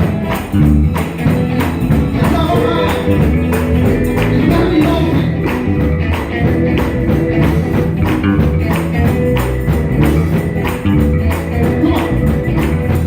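Live gospel band playing an upbeat groove: bass guitar, keyboards and electric guitar over a steady beat, with a tambourine shaking along.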